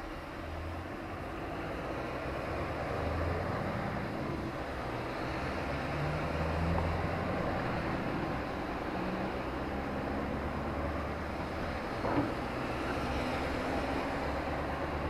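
Engine and road noise of a moving road vehicle heard from inside, the low engine note stepping up and down in pitch as the vehicle speeds up and changes gear. There is one short knock about twelve seconds in.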